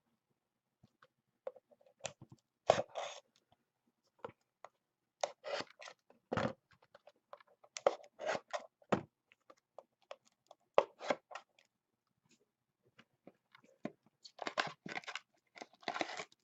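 Cellophane and plastic packaging on a box of trading cards being torn off and crumpled, in irregular crackling bursts that come thicker near the end.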